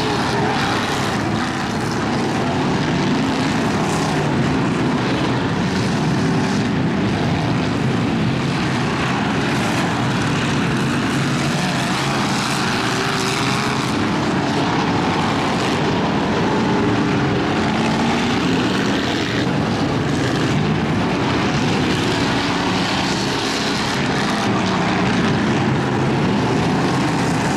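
Engines of several racing pickup trucks running hard together in a continuous drone, their pitch rising and falling as they rev through the corners.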